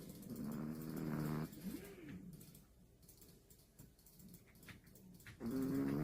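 A dog snoring loudly in its sleep: a pitched, buzzing snore lasting about a second and a half at the start, a short rising-and-falling squeak just after, and another long snore starting near the end.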